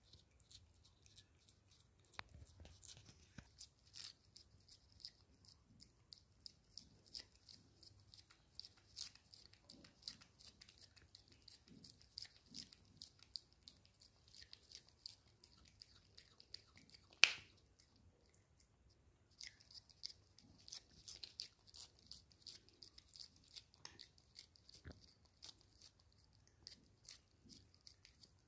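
A cat licking a creamy lickable treat from a squeezed tube: a quick, faint run of small wet licking and smacking clicks, several a second. One sharper click stands out about two-thirds of the way through, followed by a short pause in the licking.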